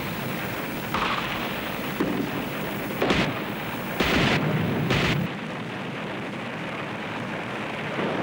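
Night street-fighting battle noise: a string of sharp blasts, about one a second for the first five seconds, over a steady rumble, which then carries on steadily without the blasts.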